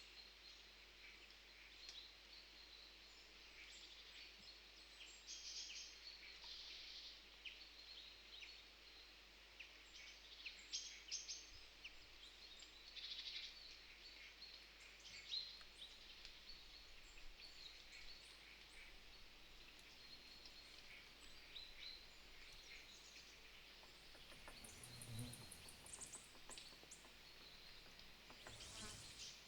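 Faint bird chirping: many short, high calls scattered throughout over a soft outdoor hiss, with a brief low bump about 25 seconds in.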